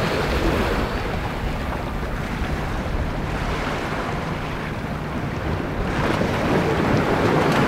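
Wind buffeting the microphone over choppy seawater, with waves washing and a low steady hum underneath.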